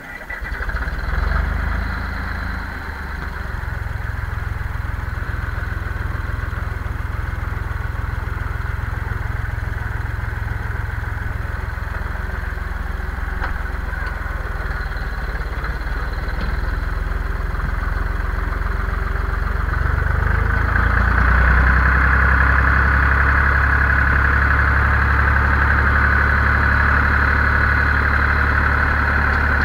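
Zetor 5245 tractor's four-cylinder diesel engine heard from inside the cab, running steadily at idle, then running louder from about twenty seconds in as the tractor drives off.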